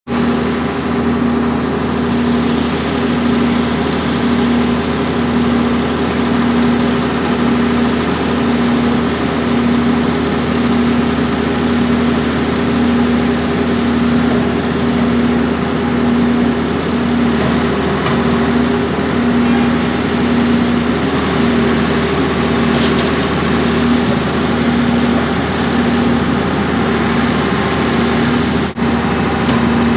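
Diesel engine of a multi-axle self-propelled modular transporter running steadily at a constant speed, with a low hum that throbs evenly.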